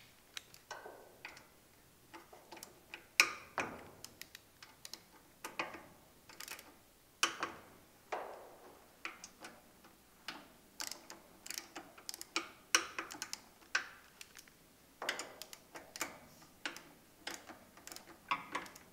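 Socket ratchet tightening bell-housing bolts into an engine, clicking in short irregular runs, mixed with scattered knocks of metal tools being handled.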